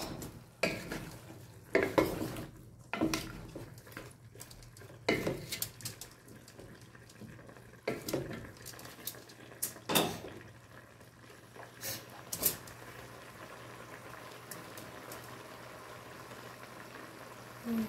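Wooden spatula stirring chicken and green papaya pieces in an aluminium pot, with scattered knocks and scrapes against the pot's sides over a faint steady sizzle from the pot. The stirring stops about two-thirds of the way through, leaving only the sizzle.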